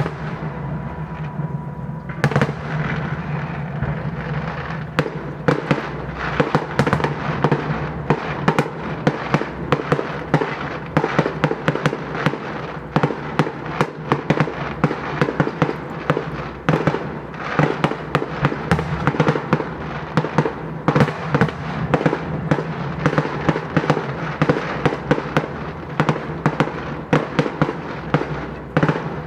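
Fireworks display going off without a break: a dense, rapid run of crackles and pops, thickening about two seconds in.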